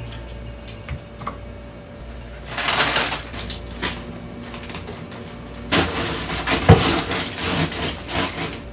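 Hands working a lemon at a wooden cutting board: it is cut and squeezed over a bowl of mashed avocado for guacamole. There are two spells of handling noise, a short one about two and a half seconds in and a longer one near the end, with a few sharp knocks of the bowl and utensils.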